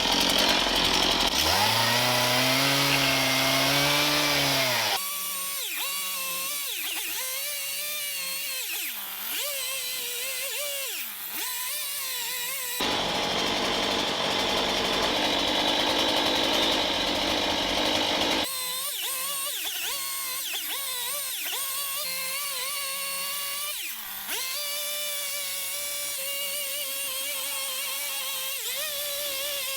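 Chainsaw carving into a wooden axe handle: the engine runs loud in the cut for the first five seconds and again in the middle, and in between and near the end it runs lower with a pitch that wavers up and down.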